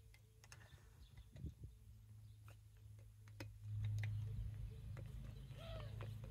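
Faint scattered clicks of a screwdriver working the set screws of a cable tap, over a steady low hum that grows louder a little over halfway through. Near the end, two short arching animal calls.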